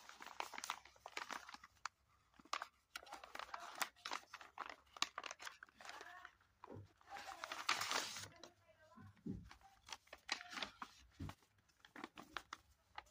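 Kraft paper mailer being handled and opened by hand: crinkling and rustling with sharp crackles, and a longer rush of paper noise about seven to eight seconds in as a folded white paper packet is pulled out. A few soft thuds of handling come near the end.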